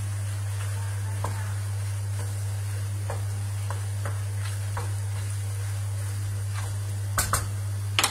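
Wooden spoon stirring pasta and guanciale in a frying pan: soft scrapes and light clicks over a steady low hum. Near the end come a few sharp knocks of the spoon against the pan.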